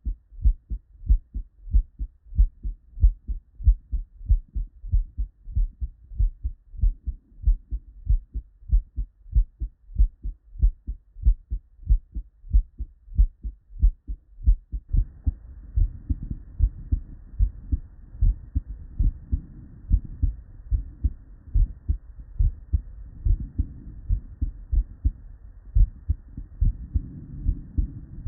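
Normal human heart sounds heard through a stethoscope: a steady lub-dub rhythm of S1 and S2 beats, the sign of normal cardiac physiology. About halfway through it switches to another recording with more low background noise behind the beats.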